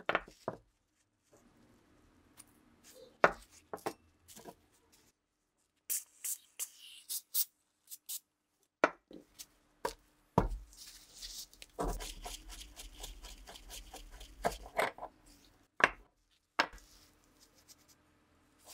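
Rusty Winchester 1895 rifle parts being handled and taken apart by hand: scattered sharp metal clicks and knocks, some against a wooden block, with a few seconds of quick rattling clicks and scraping past the middle.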